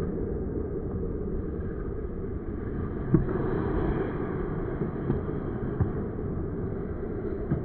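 Steady low rumble of an ice rink, with a few sharp knocks of hockey sticks and puck. The loudest knock comes about three seconds in, followed by smaller ones.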